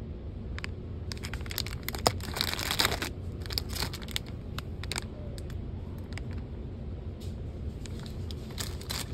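Plastic candy packaging crinkling and rustling as it is handled, with scattered small clicks and the densest crinkling about two to three seconds in. A steady low background hum runs underneath.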